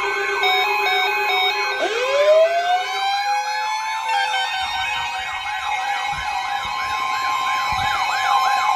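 Siren sounds layered over steady alarm tones. A fast, repeating up-and-down sweep runs throughout. About two seconds in, a second siren winds up from low to high and holds its pitch.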